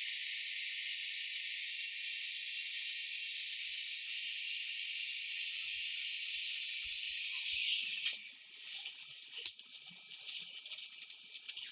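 A steady high hiss that fades out about eight seconds in, followed by faint scattered clicks.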